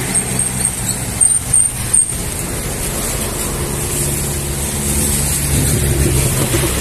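Road traffic passing on a wet city street: vehicle engines and tyres, with an engine hum that grows louder in the second half.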